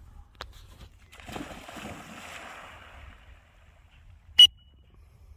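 A black retriever splashes into a pond about a second in, and the water churns as it swims off, dying away after a couple of seconds. Near the end comes a single sharp, loud click with a brief high ring.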